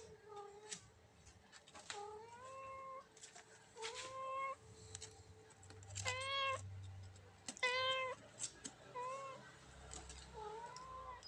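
Kitten meowing again and again: about seven short, high meows, the loudest two around six and eight seconds in.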